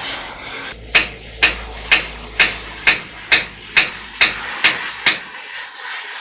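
Hammer striking metal in a steady series of ten sharp blows, about two a second, starting about a second in and stopping about five seconds in.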